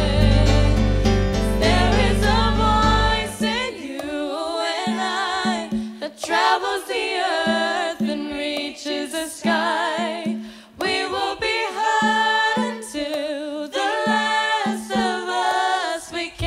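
A live band performing a song, with several voices singing together in harmony. About three seconds in, the deep bass falls away, leaving the voices over sparse short low notes.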